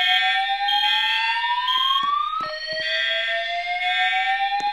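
School fire alarm voice-evacuation system sounding its slow whoop tone. A smooth tone rises steadily in pitch for about four seconds, then drops back and starts rising again about two and a half seconds in. Under it a higher tone pulses about once a second, with sharp clicks here and there.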